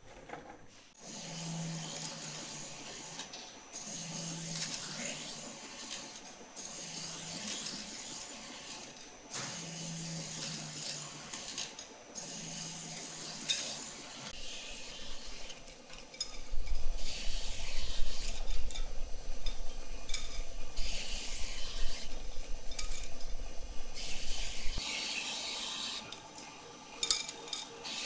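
Wet abrasive wheel grinding the ends of thin fishing-rod blanks, a hissing rasp as each blank is pressed to the spinning wheel, in passes of two to three seconds with short breaks. From about halfway it gets louder over a deep machine hum.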